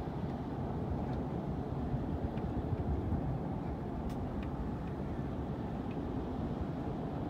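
Steady low rumble of a large cruise ship under way, heard across the water.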